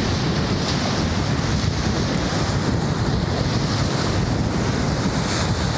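Strong wind blowing across the microphone: a steady, rumbling buffet of wind noise.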